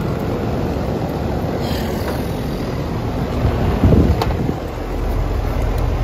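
Rheem Prestige RAPM048 condensing unit running, giving a steady low mechanical hum. There is a brief louder rush with a click about four seconds in.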